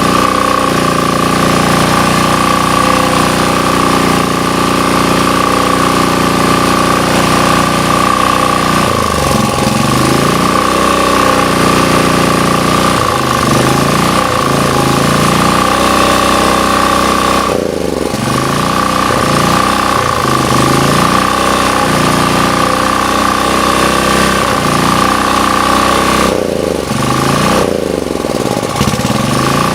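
Sportsman GEN2000 portable generator's small engine running, its speed dipping and recovering several times, over a steady high whine.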